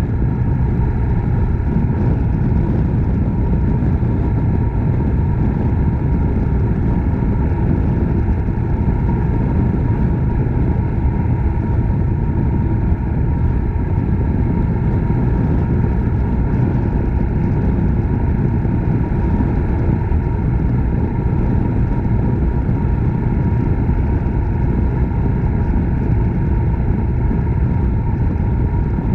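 Suzuki Grasstracker Big Boy's 250 cc single-cylinder four-stroke engine running steadily while the motorcycle cruises, with no change in speed or gear.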